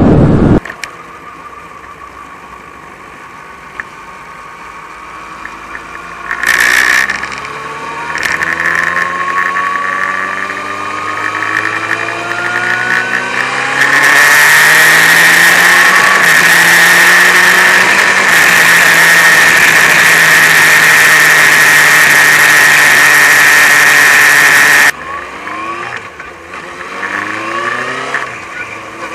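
Motorcycle engine accelerating, its pitch climbing, as picked up by an action camera fitted with a furry wind filter. About halfway through, a loud, steady rushing noise with a high whine drowns the engine for roughly ten seconds, then cuts off suddenly, leaving the engine audible again.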